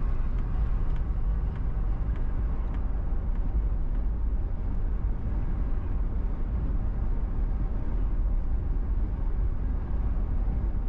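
Steady low rumble of a car driving at a constant speed, heard from the car itself: tyre and engine road noise, with a few faint ticks in the first few seconds.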